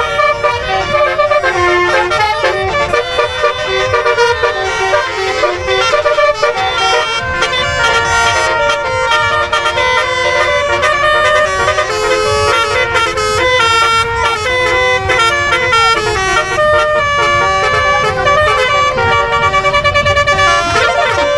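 Bus telolet horn (a multi-trumpet 'basuri' melody horn) playing a tune: loud held notes that step up and down, several tones sounding together, over a low rumble.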